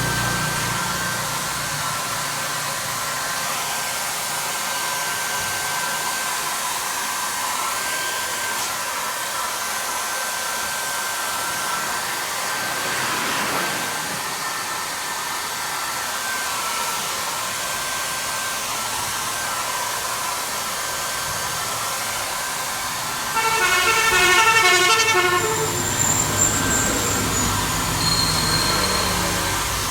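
A steady rushing noise, with a horn sounding in quick repeated beeps for about two seconds near the end.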